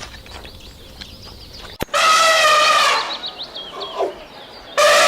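Chicken calling: two loud, drawn-out squawks about a second long, one about two seconds in and another near the end, over faint high peeping. A sharp click comes just before the first squawk.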